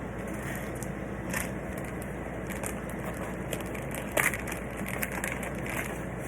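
Plastic packaging crinkling and rustling as phone cases are handled, with scattered short clicks and crackles, the sharpest about four seconds in.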